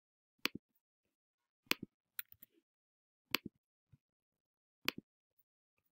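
Computer mouse clicking: four sharp clicks about a second and a half apart, each a quick double tick, with a few fainter ticks between the second and third.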